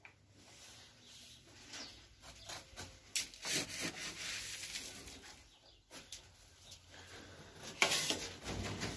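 Scoop working a bucket of dry grain-and-pellet feed mix (barley, oats, wheat and pellets), the grain rustling and pouring, with knocks and rattles from a wooden, wire-mesh rabbit hutch. A louder burst of rustling comes near the end.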